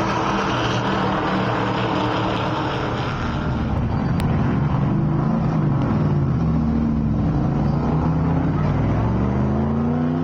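NASCAR stock car V8 engine running. Its pitch holds steady for the first few seconds, then wavers up and down and rises near the end.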